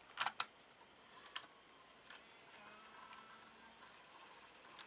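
Plastic clicks of a Video8 cassette being handled in a Sony CCD-TRV138 camcorder's cassette compartment, then, about two seconds in, the camcorder's small tape-mechanism motor whirring faintly and steadily for nearly three seconds, ending on another click.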